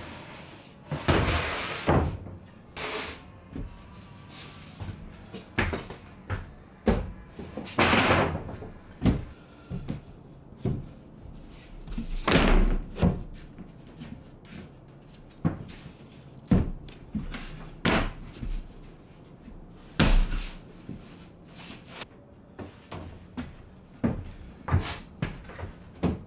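Plywood deck panels being handled and set down on a wooden boat's deck framing: a run of irregular knocks and thuds, with a few longer scraping slides of wood on wood.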